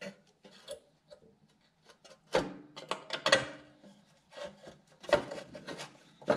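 Trim panel being fitted under a tractor's dashboard and fastened with a screwdriver: irregular clicks, knocks and scraping as the panel is pushed against the body, loudest about two and a half seconds in and again about five seconds in.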